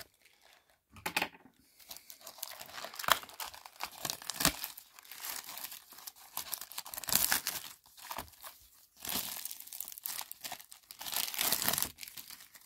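Plastic shrink wrap on a cardboard box of trading cards being torn open and crinkled by hand. It crackles on and off from about a second in, with short pauses.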